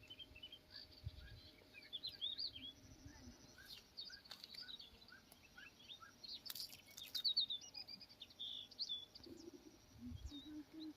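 Several wild birds chirping and singing together, with short high calls overlapping and a run of evenly spaced short notes through the middle.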